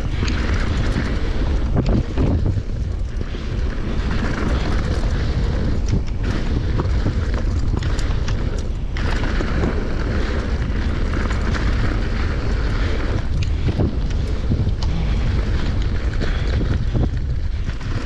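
Wind buffeting a helmet camera's microphone on a fast downhill mountain-bike descent, a loud steady rumble. Tyres roll over a dirt and gravel trail underneath, and the bike rattles and knocks over bumps all the way through.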